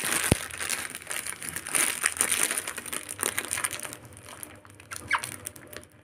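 Plastic bread packet crinkling in quick, irregular crackles as a pet parrot tears at the bread, dying down after about four seconds.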